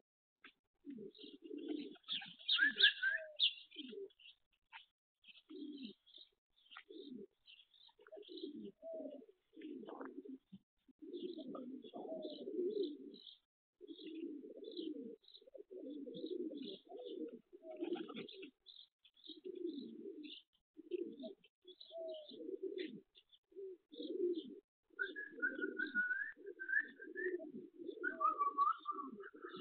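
Racing pigeons cooing again and again in short phrases, with small birds chirping in quick high notes. Near the end another bird adds a few clear mid-pitched notes.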